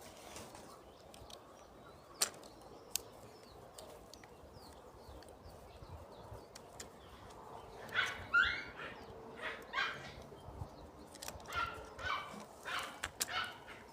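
A dog barking repeatedly from about eight seconds in, after two small sharp clicks near the start.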